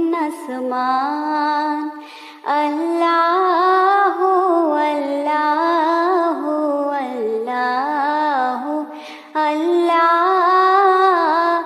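A single voice singing a Bengali Islamic gojol (devotional song) unaccompanied, in long held, ornamented notes with brief pauses for breath between phrases.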